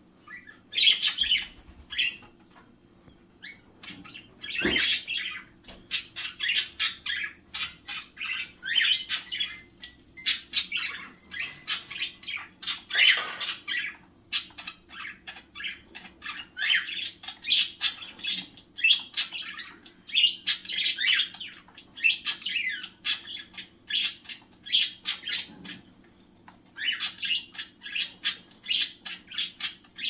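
Pet cockatiel and budgerigars chirping and squawking, short high calls coming in quick runs with only a few brief pauses.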